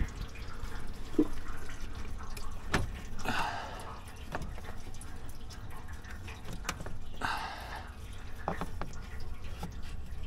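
Coolant dripping and trickling from the open water-pump area of a GM LS V8, mixed with scattered light clicks and taps of the pump and its bolts being fitted by hand. Two short trickles come about three and seven seconds in.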